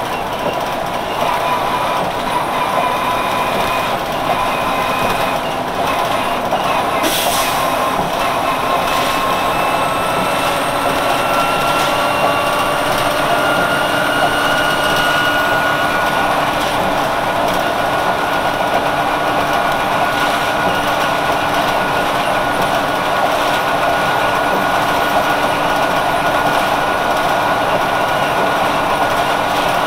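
1999 Nova Bus RTS-06 transit bus running, its Detroit Diesel Series 50 four-cylinder diesel and ZF Ecomat HP-592C automatic transmission giving a steady drone. A whine climbs gently in pitch from about ten to fifteen seconds in and then holds steady, and there is one sharp knock about seven seconds in.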